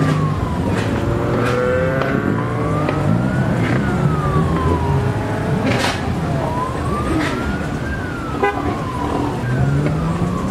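A siren wailing, rising and falling slowly about every four seconds, over car engines running and revving. A few sharp clicks come through.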